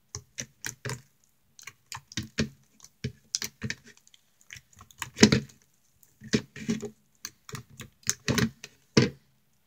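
Homemade pink slime being squeezed and kneaded by hand close to the microphone, making irregular wet clicks and pops. The loudest pops come about five seconds in and again near the end.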